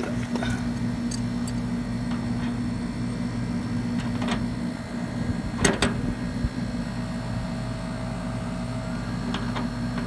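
Outdoor air-conditioner condensing unit running with a steady electrical hum, and a few sharp metallic clicks as a spanner works on the unit's service valve, the loudest about halfway through.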